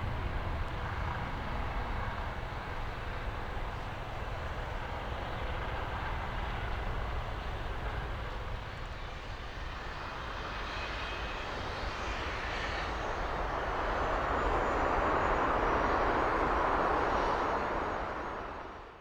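Dassault Falcon 2000LX business jet's two turbofan engines: a steady jet rush with a faint high whine in the middle. It swells to its loudest near the end, then cuts off suddenly.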